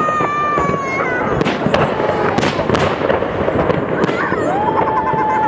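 Fireworks salute bursting overhead: a dense, continuous run of bangs and crackles, with a few long held voice-like tones rising above it.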